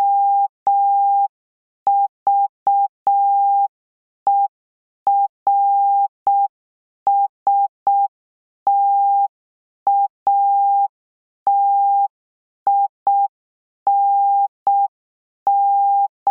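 Morse code sent as a single steady tone of about 800 Hz, keyed in dots and longer dashes with clear gaps between letters. It spells out the word OVERSTATING at a slow practice pace.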